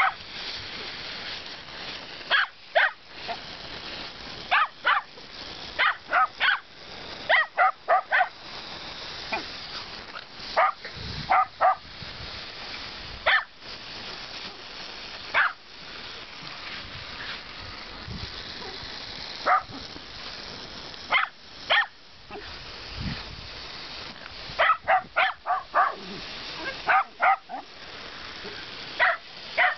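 Shetland sheepdogs barking in short bursts of two to four barks, again and again, over the steady hiss of a lawn sprinkler's water jet.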